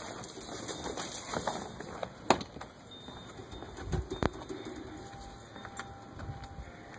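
Dog claws clicking and scrabbling on wooden deck boards, with two sharp knocks about two and four seconds in. Faint bird calls.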